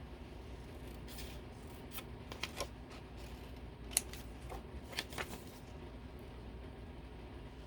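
Scissors cutting paper in a few separate short snips, the sharpest about four seconds in.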